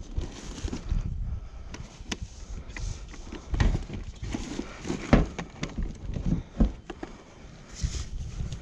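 Rummaging through a pile of discarded junk and pulling out an extension lead: irregular knocks, clacks and rustling, the loudest clack about five seconds in.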